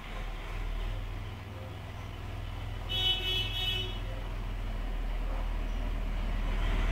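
Steady low background rumble, with one short high-pitched horn toot lasting under a second about three seconds in.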